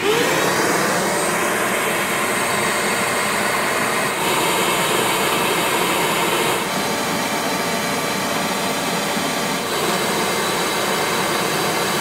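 Bee vacuum's motor running steadily as its hose sucks bees off the comb, its whine rising briefly in pitch as it spins up at the start.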